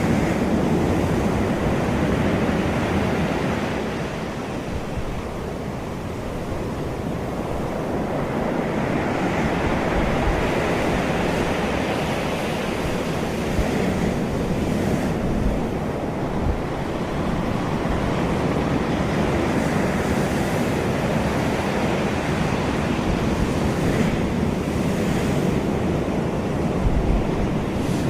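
Rushing, splashing water that swells and ebbs over several seconds, with wind rumbling on the microphone.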